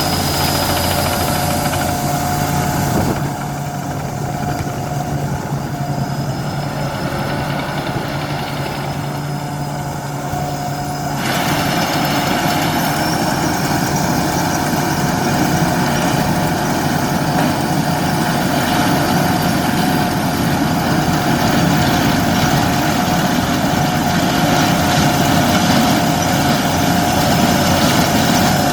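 Engine-driven corn sheller running steadily, with a thin steady whine over the engine's hum. It drops quieter for several seconds a few seconds in, then comes back up abruptly.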